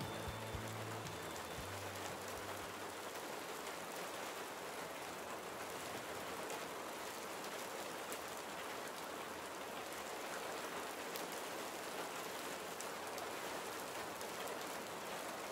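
Steady rain pattering on the windshield and cab of a semi-truck, heard from inside the cab as an even, unbroken hiss of drops.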